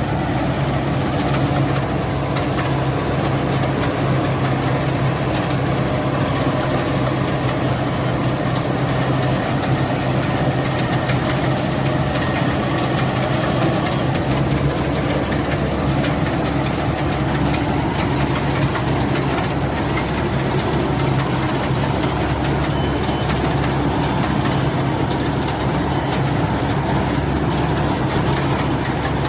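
Rice combine harvester's engine running steadily, with a constant low hum.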